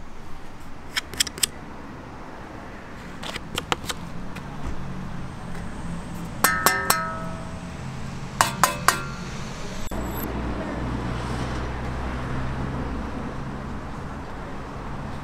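A hand tapping and handling e-bike mudguards and parts: a few dry clicks in the first few seconds, then two clusters of ringing metallic clinks about six and a half and eight and a half seconds in. After that, a steady low rumble.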